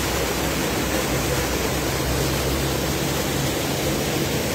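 Spring water rushing and falling in a steady, even noise, the spring running high with rainwater.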